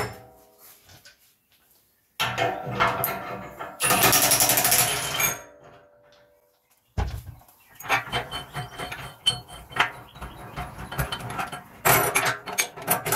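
A cordless impact wrench runs in a dense hammering burst for about three seconds, loosening the nut on a screw-type bush press's threaded rod. After a short pause come irregular metal clinks as the steel press cups and rod are taken apart by hand.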